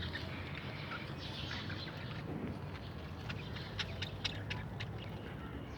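Small pet parrots chirping faintly and intermittently, with a few sharp clicks about four seconds in.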